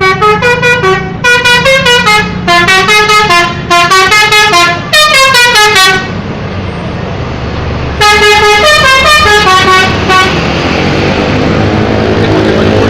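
Bus 'telolet' multi-tone air horn playing quick melodic runs of notes in several phrases, falling silent for about two seconds in the middle, then another phrase. Near the end the horn stops and a vehicle engine and road noise rise.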